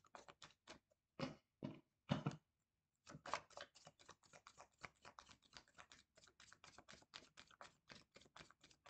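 A deck of tarot cards being shuffled by hand. Three louder slaps come in the first couple of seconds, then a fast, steady run of soft flicking clicks.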